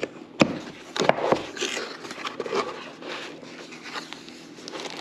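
Hands handling packaging and parts during an unboxing: a few sharp taps and clicks in the first second and a half, then soft rustling and small ticks.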